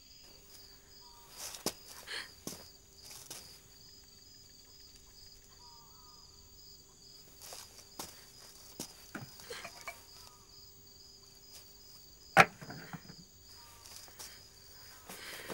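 Crickets chirping steadily in a pulsing trill, with scattered small clicks and knocks of movement and one sharp, louder knock about twelve seconds in.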